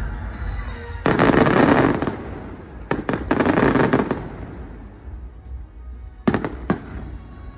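Aerial fireworks going off: two stretches of dense crackling, each about a second long, then two sharp bangs in quick succession near the end.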